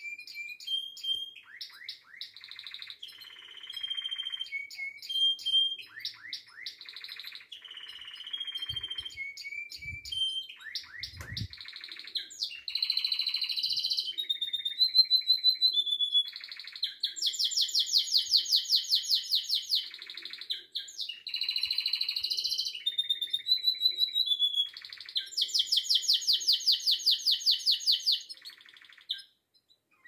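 Canary singing a long, varied song of chirps, whistled notes and rapid rolling trills, with two long fast trills about halfway through and again near the end. A few soft low thumps come a third of the way in, and the song stops just before the end.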